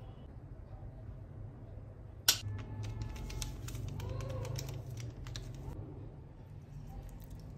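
Plastic spice sachet being handled and poured: a sharp click about two seconds in, then a run of small crinkling clicks, over a steady low hum.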